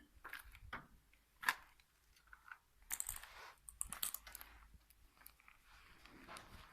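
Footsteps crunching and clicking over debris on a hard floor, with a sharp click about a second and a half in and louder scraping crunches around three and four seconds.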